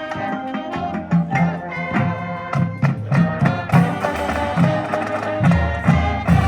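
Marching band playing: held brass chords over a steady pulse of low drum hits.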